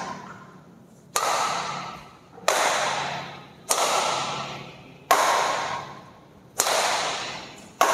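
Badminton rackets hitting a shuttlecock back and forth in a lob rally, one of them an Apacs Satelite 88 freshly strung at 29 lbs. There are six sharp hits, about one every 1.3 seconds, each ringing out in the echo of an indoor hall.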